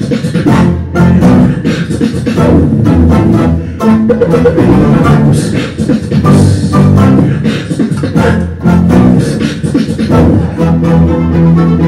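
Beatboxing into a handheld microphone: a fast, continuous run of mouth-made kick, snare and hi-hat clicks with hummed bass tones, over a plucked-string folk orchestra playing along.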